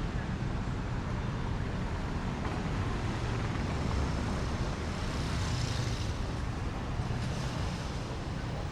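City street traffic: a steady low rumble of passing vehicles' engines and tyres, with a brief hiss a little past the middle.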